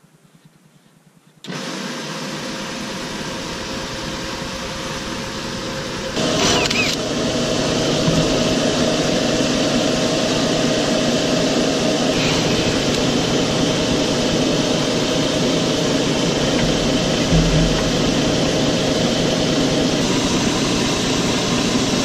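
Refrigerant recovery machine switched on about a second and a half in, running steadily as it recovers the refrigerant charge from a geothermal heat pump; about six seconds in it grows louder and keeps running.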